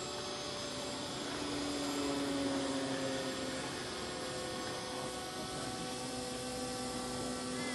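90 mm electric ducted fan of a radio-controlled model jet, running on a six-cell battery, whining steadily with a rush of air as the plane flies overhead. It grows a little louder about two seconds in, its pitch sagging slightly as it passes.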